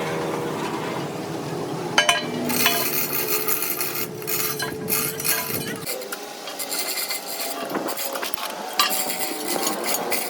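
Metal parts and hand tools scraping and clinking during truck suspension repair, with a sharp knock about two seconds in and scattered taps later. A low steady hum underlies the first six seconds.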